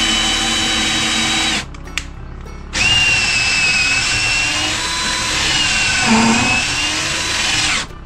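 Cordless drill spinning a stepped pocket-hole bit through a pocket-hole jig into a pallet-wood board to bore a pocket hole, in two runs: the first stops about a second and a half in, and the second starts near three seconds and lasts about five seconds. The whine dips in pitch briefly near the end of the second run.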